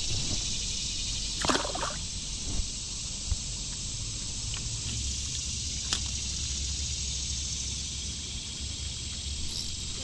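A steady, high-pitched hiss of insects droning, with a couple of faint clicks.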